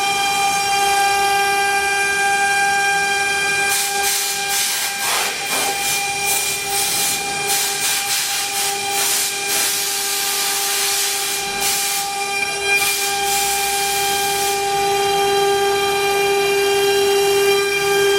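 CNC wood router spindle running with a steady high-pitched whine. From about four seconds in until near fifteen seconds, a rough, uneven hiss of the bit cutting wood comes and goes over the whine.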